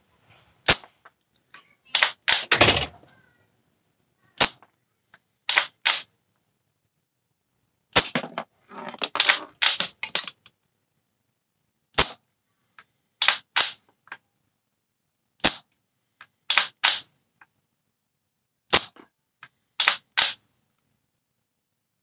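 KC-02 CO2 bolt-action airsoft rifle firing 0.4 g BBs, about six sharp shots a few seconds apart. Each shot is followed by the clack of the bolt being worked back and forward to chamber the next round.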